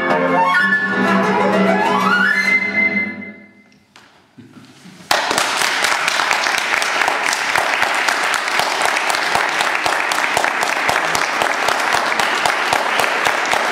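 Flute and classical guitar playing the closing bars, with a rising run and a final chord that dies away. After a short pause, an audience breaks into applause about five seconds in and keeps clapping.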